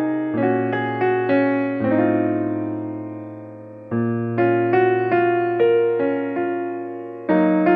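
Background music: piano or electric piano playing a slow melody over sustained chords, with one chord left to fade for about two seconds in the middle.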